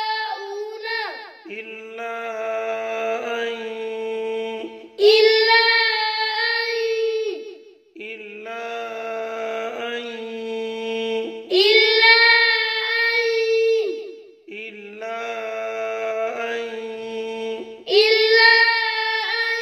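Melodic Quranic recitation in the Panipati style, chanted phrase by phrase with long held notes. A high voice and a lower voice take turns about every three seconds.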